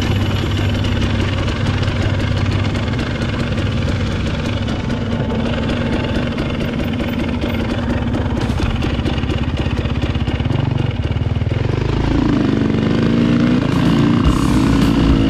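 300 cc dirt bike engine running on a trail ride, its note rising and falling with the throttle in the last few seconds.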